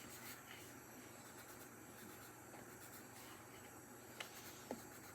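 Faint scratching of a drawing tool on paper as a paw is drawn, with a couple of small ticks near the end.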